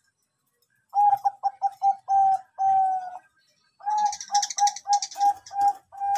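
Zebra dove (Bangkok-type perkutut) cooing. It gives two phrases of quick, clipped coos on one pitch: the first ends in two longer drawn-out coos, and the second is a steady run of about eight short coos.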